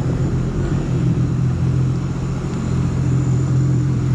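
Jet ski engine idling steadily at a constant pitch.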